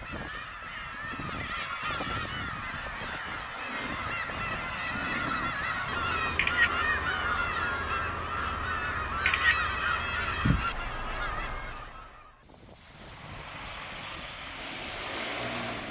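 A large flock of gulls calling over one another in many overlapping squawks. About three quarters of the way through, the calls break off and a steady low rumble takes over.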